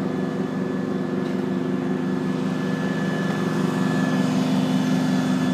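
Aerial ladder fire truck's diesel engine and hydraulics running steadily while the 102-foot ladder is run out to the side: a constant low drone with a thin, steady whine above it.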